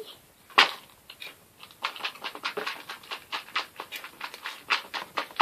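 A child eating a handful of crunchy food noisily, in imitation of a baby alligator: one sharp snap under a second in, then a run of quick crunching and smacking bites, about three or four a second.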